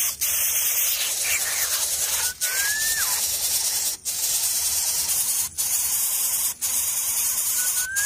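Steady hiss with a bird's short whistled call: a note that rises, then drops sharply. The call comes about two seconds in and again near the end.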